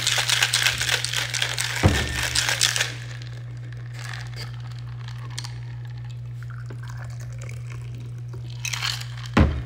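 A stainless steel cocktail shaker shaken hard, its contents rattling against the metal, stopping about three seconds in. Then quieter handling as the shaker is opened, and a short pour into a shot glass, with a knock near the end.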